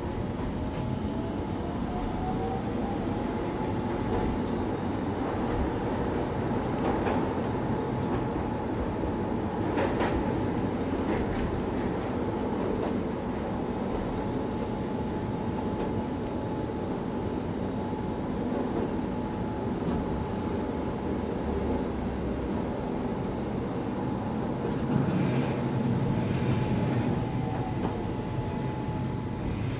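Keihan 800-series electric train running on street track, heard from the driver's cab: steady wheel and running noise with a motor whine that rises in pitch over the first few seconds as it accelerates. The whine holds steady, then falls in pitch near the end as the train slows.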